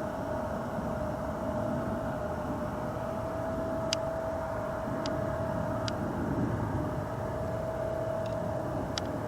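Steady distant engine and traffic rumble with a constant mid-pitched whine, and a few faint clicks.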